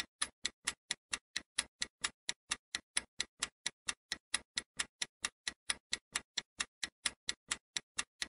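Clock-style ticking sound effect of a quiz countdown timer, steady sharp ticks at about four a second, running while the answer time counts down.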